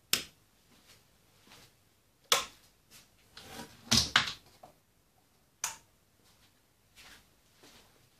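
A few sharp clicks and knocks a second or two apart, with a short cluster of them about four seconds in, over quiet room tone.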